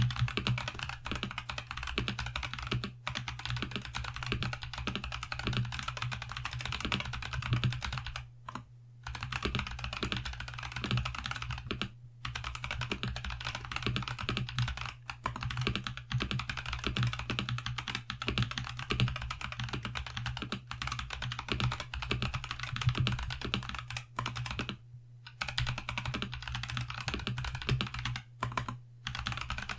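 Fast continuous typing on a TM680 mechanical keyboard with stock Boba U4T tactile switches and a foam and tape mod, the keystrokes running together with a few short pauses. A steady low hum runs underneath.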